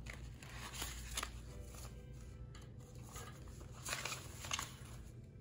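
Paper banknotes rustling and crackling as they are handled and sorted, in a series of short irregular rustles.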